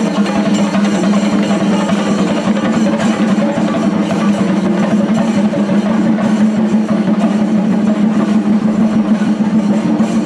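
Singari melam troupe playing: chenda drums beaten in a fast, dense, unbroken rhythm, loud and steady throughout.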